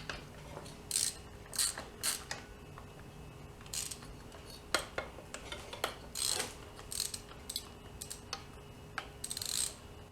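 Socket ratchet wrench clicking in short, irregular spurts as 13 mm bolts are worked loose on an engine.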